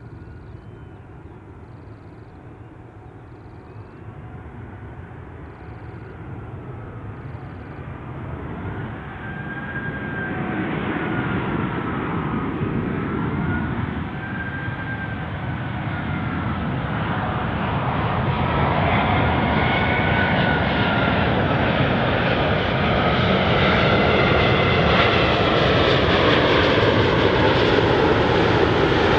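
Airbus A380's four Rolls-Royce Trent 900 jet engines on final approach, a rumble with a whine that wavers up and down in pitch, growing steadily louder as the airliner nears and passes overhead.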